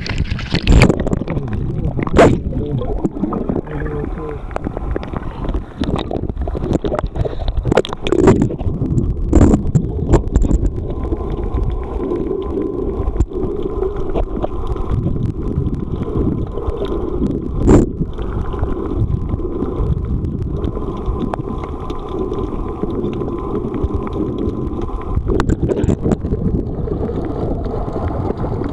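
Muffled sound of seawater heard through a camera held under the surface: a steady low churning rush with gurgling. Several sharp knocks stand out in the first ten seconds and once more about eighteen seconds in.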